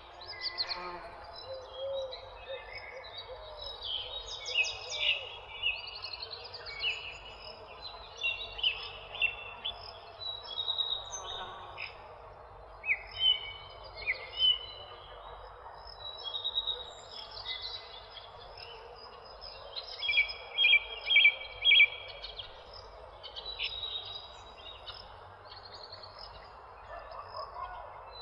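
Several small birds chirping and trilling together in a busy, overlapping chorus of short high calls, over a steady background hiss. A burst of louder, rapid chirps comes about two-thirds of the way through.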